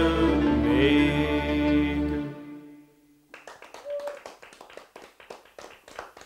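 Male singer holding the final notes of a Hungarian magyar nóta over backing music, which ends about two seconds in. After a short pause, a few people clap.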